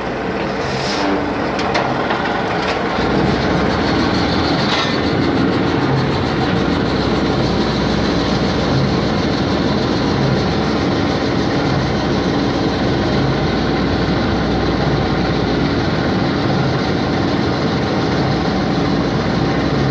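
Ferris wheel drive motor switched on and running steadily, coming up to speed about two to three seconds in, with a few light clicks early in the start-up.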